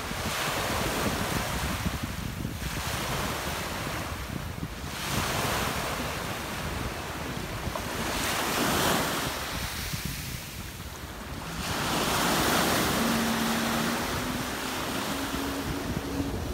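Sea waves washing onto a rocky shore in slow swells every few seconds, with wind buffeting the microphone. A steady motorboat engine hum comes in about three-quarters of the way through and rises slightly in pitch.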